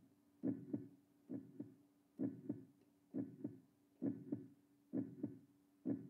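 A slow, regular double-thump pulse like a heartbeat, about seventy pairs a minute, each pair of beats carrying a low hum.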